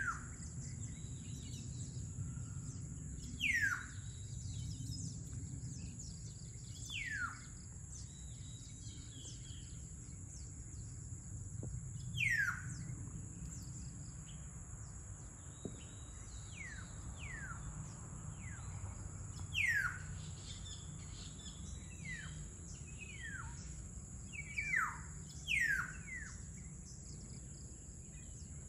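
Dawn birdsong: a bird repeats a clear, down-slurred whistle every few seconds, sometimes in quick pairs. Behind it run a steady high-pitched drone and a low background rumble.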